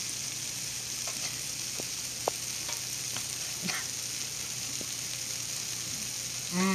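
Steady frying sizzle from food on a hot oiled griddle, with a few light clicks scattered through.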